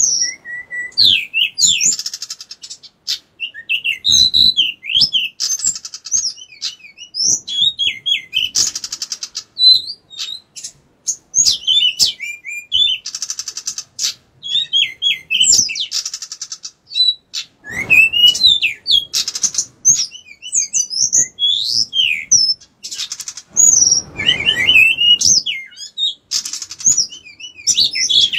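Caged male pied bushchat (decu) singing prolifically. It gives a dense, unbroken run of quick whistled chirps that slide up and down, mixed with several harsh buzzy rattles.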